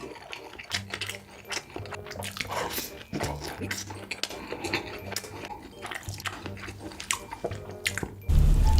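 Close-miked wet eating sounds of noodles being slurped and chewed, with many short sharp mouth clicks and smacks, over low background music. A much louder passage cuts in near the end.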